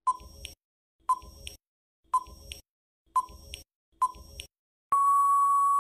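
Quiz countdown timer sound effect: five short beeps about a second apart, then a longer steady beep near the end as the time runs out.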